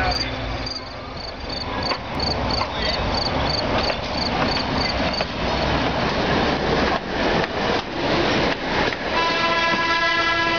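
Electric streetcar rolling past close by on its rails, its wheels clicking over the rail joints near the end of its pass. About nine seconds in, the streetcar's horn starts sounding a steady chord. Night insects chirp in a regular pulse, two to three times a second, through the first few seconds.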